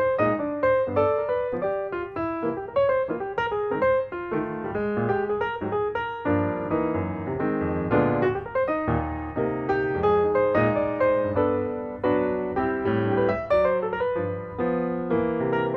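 Background piano music: a steady, unbroken flow of notes.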